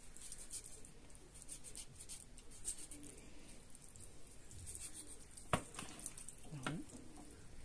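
Kitchen knife cutting raw chicken drumsticks open lengthwise down to the bone, with faint scraping strokes of the blade on meat and bone and a sharp click about five and a half seconds in.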